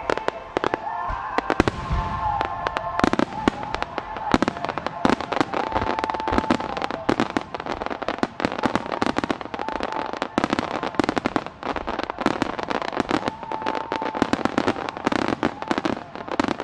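Starmine fireworks barrage: shells bursting and crackling in rapid, dense succession, several sharp reports a second.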